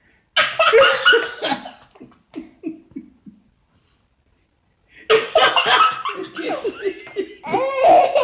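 Laughter in two bouts: the first starts about half a second in and trails off in short pulses, and the second starts suddenly about five seconds in.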